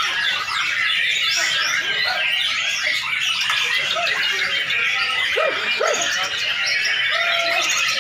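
Many white-rumped shamas (murai batu) singing at once, a dense, unbroken tangle of overlapping whistles, trills and chirps.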